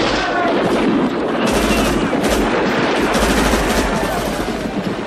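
Battlefield automatic weapons fire: a dense, continuous rattle of shots, with a few sharper reports standing out about a second and a half in and again around two and three seconds in.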